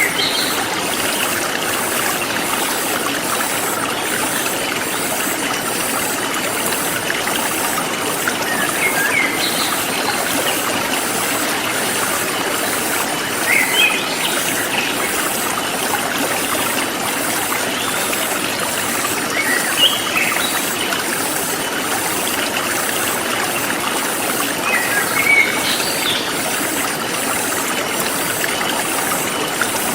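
Forest stream flowing steadily, with birds giving short, scattered chirps: a few around the start, near 8 to 10 s, near 14 s, near 20 s and near 25 s.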